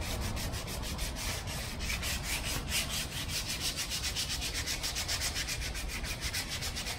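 Hand sanding of a wooden airplane fuselage, with quick, even back-and-forth rasping strokes at about six a second. It is a light scuff sanding to give the wood tooth for the fabric covering to grip.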